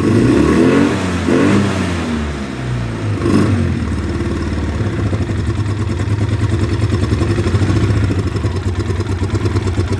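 A 2009 Polaris Sportsman 800 ATV's twin-cylinder engine revved three times in the first few seconds, each time falling back, then settling from about four seconds in to a rough, lumpy idle. The idle is running super rough, which the mechanic fears is from gummed-up injectors and fouled spark plugs after months of sitting.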